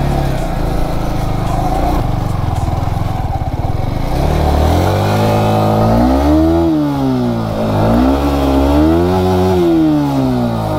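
Yamaha R15 V3's single-cylinder engine running, then revved up and let back down twice in a row.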